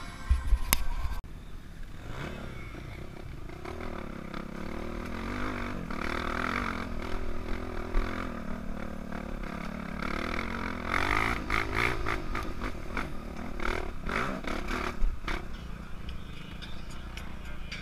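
Trail dirt bike engine heard from the rider's helmet, rising and falling in pitch as the throttle is opened and closed on a grassy trail. There are a few loud thumps in the first second.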